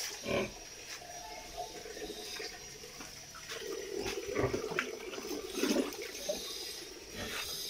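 Heavily pregnant sows grunting in their concrete pen, in short, irregular grunts with a few sharp clicks.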